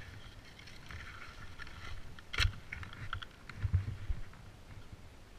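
Skis and gear scraping and knocking on rock and hard-packed snow, over a low wind rumble on the helmet camera's microphone. A sharp knock comes about two and a half seconds in, and a few heavier thumps come about a second later.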